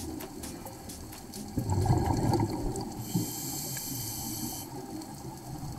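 Scuba diver breathing through a regulator underwater. About two seconds in comes a burst of bubbling exhaled air, then a second-and-a-half hiss of the regulator on the next breath in, with faint clicks throughout.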